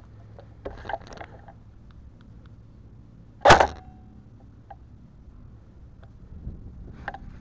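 A single sharp airsoft gun shot about halfway through, with a brief ring after it. Fainter clicks and rustles come before and after it.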